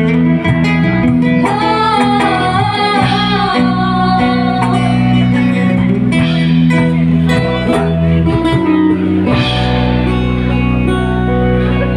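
Live band music: keyboard and acoustic guitar playing, with a woman singing a wavering melody line for a few seconds early on. Near the end the sound shifts to a fuller, bass-heavy mix.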